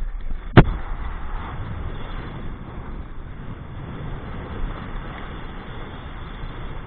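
Strong wind buffeting the microphone, a steady low rumbling noise, with one sharp knock about half a second in.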